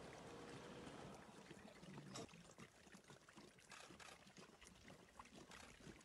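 Faint wet lapping and small splashes of a pride of lions drinking, many tongues at once, heard as irregular soft clicks over quiet background.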